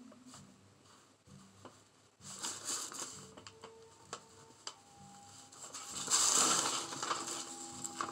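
Gritty scraping and rustling of a fine tool working loose sand on a sand painting, with small clicks and a louder rasping stretch about six seconds in.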